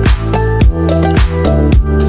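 Electronic dance music with a steady four-on-the-floor beat, about two beats a second, over a strong bass line.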